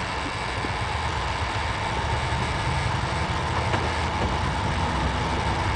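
Infiniti G35's VQ35DE 3.5-litre V6 idling steadily with a knocking from the bottom end, which the owner suspects is rod knock.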